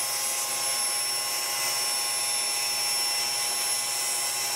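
Table saw running steadily at full speed, an even whine with several high steady tones, as the plywood base of a crosscut sled is pushed through the raised blade to cut its centre kerf.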